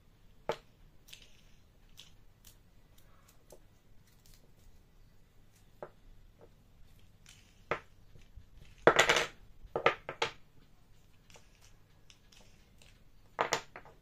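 Small wooden star knobs and handle pieces set down and moved about on a wooden tabletop: scattered light knocks, a louder wooden clatter about nine seconds in, and a couple more knocks near the end.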